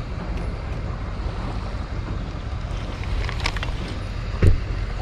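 Steady low wind rumble on the microphone aboard a fishing boat on open water, with one dull thump near the end.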